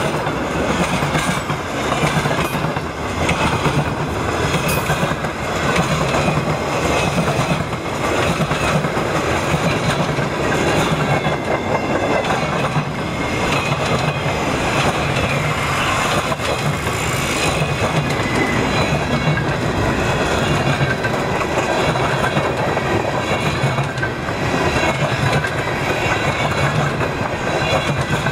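Freight train boxcars rolling past: a steady rumble of steel wheels on the rails with the clickety-clack of wheels crossing rail joints.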